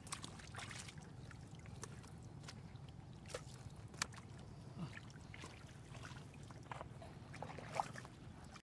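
Hands squelching and sloshing through wet mud and shallow water, with scattered short wet clicks and crackles over a steady low rumble; the sharpest clicks come about four seconds in and near the end.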